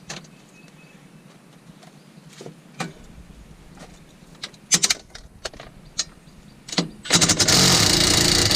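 A few sharp clicks and knocks of tools and parts being handled, then, about seven seconds in, a cordless drill with a socket runs steadily for about a second and a half, backing out a bolt.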